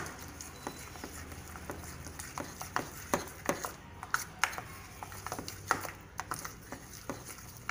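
A spoon stirring a thick spice paste in a ceramic bowl, the spoon clicking and scraping against the bowl at irregular intervals.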